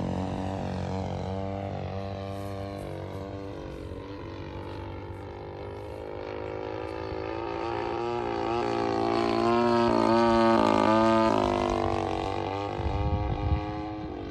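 The 55cc two-stroke gas engine of a radio-controlled FW-190 model plane running in flight, its pitch wavering as it flies. It grows louder to a peak about ten seconds in, then fades, with a brief low rumbling near the end.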